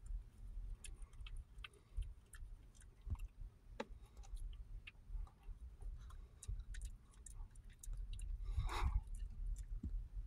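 Small dog chewing and gnawing on a raw broccoli stalk: irregular crisp clicks and crunches. Near the end comes a brief louder rustle, over a steady low rumble.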